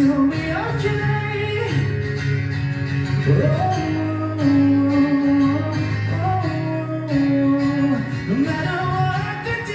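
Live acoustic guitar strumming under a male voice singing long held notes that slide between pitches.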